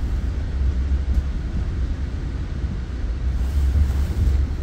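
Steady low rumble inside a moving Bombardier MultiLevel commuter rail coach: the running noise of the train on the track, with no distinct clicks or horn.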